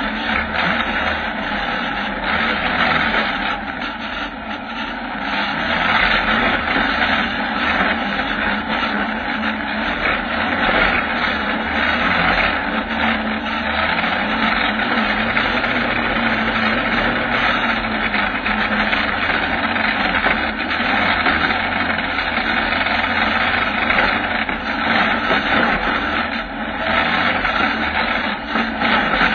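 Kawasaki ZX-9R inline-four motorcycle engine running in a 4x4 off-road buggy as it drives over rough rocky ground. It gets louder about six seconds in.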